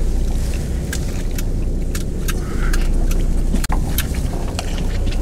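Steady low rumble of a charter boat's engine, with irregular sharp clicks and taps from fishing tackle being handled: a rod and baitcasting reel being worked over the rail to clear a tail-wrapped jig.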